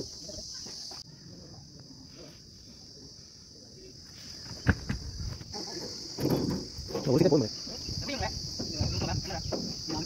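A steady high-pitched insect chorus runs throughout. About halfway through comes a sharp knock, followed by irregular clatter as wooden formwork planks are handled.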